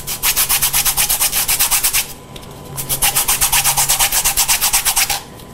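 Lemon zest being grated: a fresh lemon rubbed quickly back and forth over a small handheld metal grater, rasping at about eight strokes a second, with a short pause about two seconds in.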